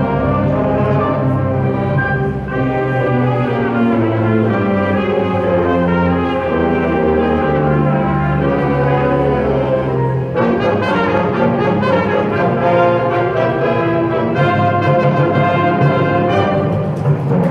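High school indoor winds ensemble playing, the brass holding full sustained chords. A new phrase enters about ten seconds in, and drum strokes join near the end.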